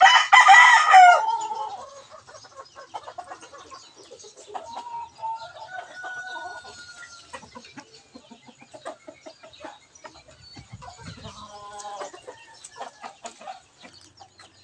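A rooster crows loudly at the start, followed by quieter clucks and calls from chickens, over scattered light crackling from the wood fire under the wok.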